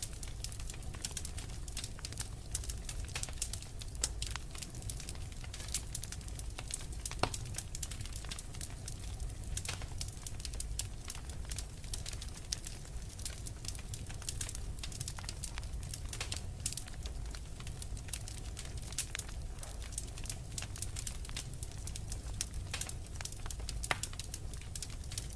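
Fireplace fire crackling: many sharp pops and snaps at an uneven rate over a low steady rumble.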